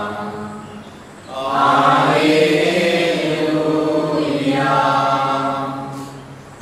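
Voices singing a slow liturgical chant in long held phrases. The singing dips about a second in, then a long phrase swells and fades near the end.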